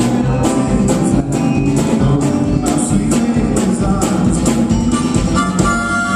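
Live band playing with a steady drum beat and cymbals over guitar and other instruments; held notes come in near the end.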